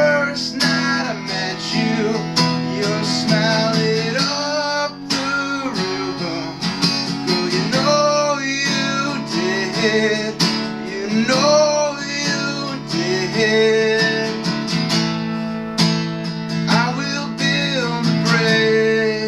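Acoustic guitar strummed steadily in a song, with a voice coming in at times with held, gliding sung notes.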